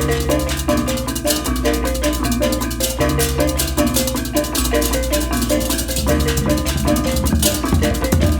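Balinese baleganjur gamelan playing: rapid, dense clashes of many ceng-ceng cymbals over pitched reyong gong-chime figures, kendang drums and deep gong strokes. About six seconds in, the long deep gong tones give way to busier, choppier low strokes.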